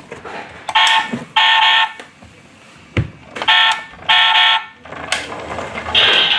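Toy Nissan Z sports car's built-in electronic sound effects, set off by pressing the buttons on its roof: two pairs of short, buzzy electronic beeps, the first pair about a second in and the second about three and a half seconds in, with a sharp click between them. A steady electronic sound starts near the end.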